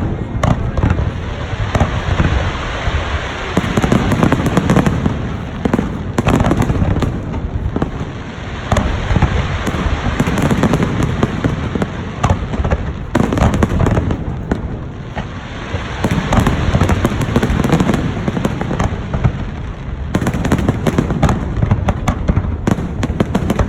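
Fireworks display with many shells bursting close together: a dense, continuous run of booms and crackling that swells and eases every few seconds.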